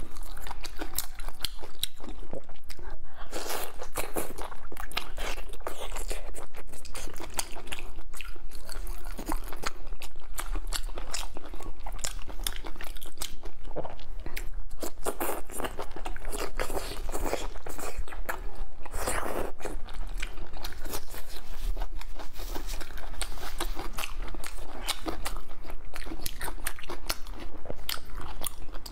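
Close-miked chewing and biting of braised meat and beef tendon in chili oil: a dense run of wet, sticky smacks and small crunches.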